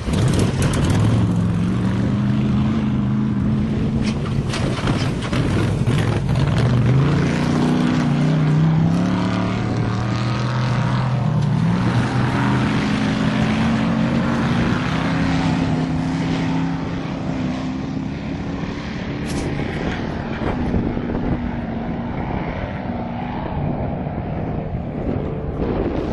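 Off-road race buggy engine running hard, its pitch rising and falling as it revs, and fading away near the end.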